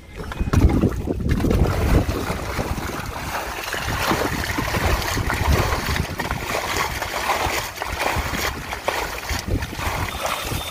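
Muddy water sloshing and splashing as a steel bowl scoops it out of a shallow pit, with wind rumbling on the microphone, heaviest in the first two seconds.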